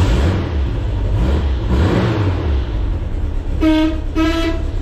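A car engine running with a low rumble, then two short horn beeps in quick succession about three and a half seconds in.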